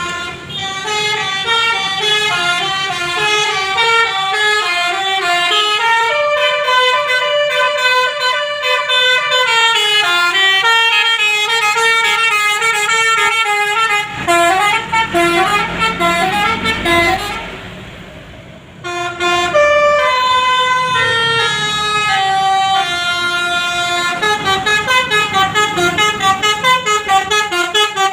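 Bus 'telolet basuri' multi-tone musical horn playing quick melodic runs of stepped notes. It fades out briefly past the middle, then starts again and ends in fast repeated pulses, about three or four a second.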